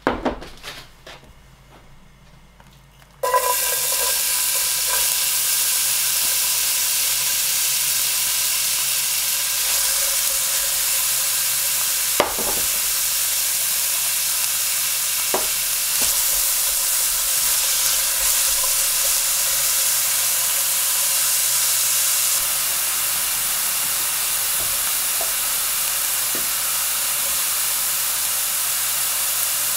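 Chopped onion frying in hot olive oil in a stainless steel pan. After a few light knocks, the sizzle starts suddenly about three seconds in and then runs on steadily, with a few sharp clicks here and there.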